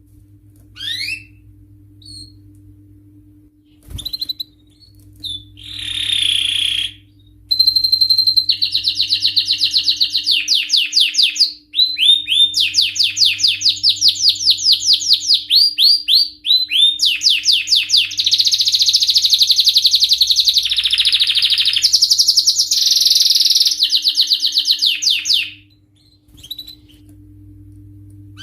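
Male canary singing: a few short chirps, then from about five seconds in a long, loud song of rapid trills and repeated notes that change speed and pitch, stopping near the end. A faint steady hum runs underneath.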